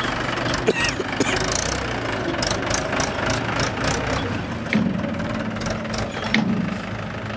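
Mahindra 575 DI tractor's four-cylinder diesel engine running under way through loose dirt, with scattered sharp knocks and rattles over the engine note.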